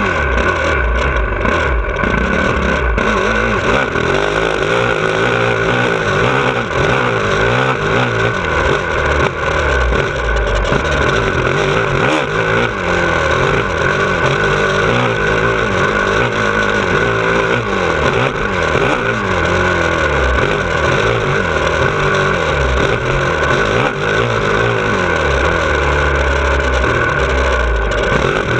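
2017 Honda CRF450R's single-cylinder four-stroke engine under hard riding, revving up and dropping back again and again as the rider accelerates, shifts and rolls off around a dirt track.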